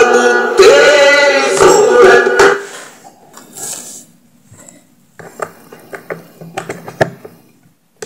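A qawwali song, a man's singing over music, playing loudly through a small Bluetooth speaker that now works again after its faulty driver was replaced; it cuts off about two and a half seconds in. Then a run of light clicks and taps as the speaker is handled.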